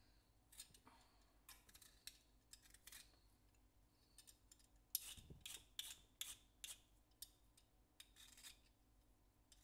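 Faint short, scratchy scraping and rubbing strokes as hands work a raw carrot over a wooden cutting board, thickest about halfway through.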